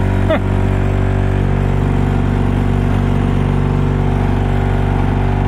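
12-volt blower fan motor running steadily at full speed, a loud constant hum. It is drawing about 10 amps straight from a lead-acid battery via jumper cables, as a load test, and its mounting is only hand-tightened.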